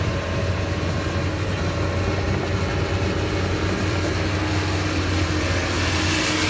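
Doosan DX225LCA crawler excavator's diesel engine running with a steady low hum. A hiss grows louder near the end.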